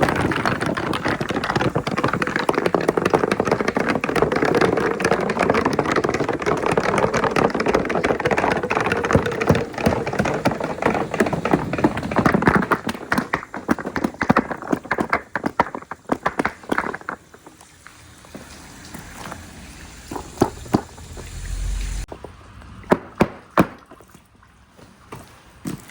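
Many glass marbles rattling and clacking down a water-flow marble run. The clatter is dense for about the first thirteen seconds, then thins out to scattered single clicks as the last marbles finish the course.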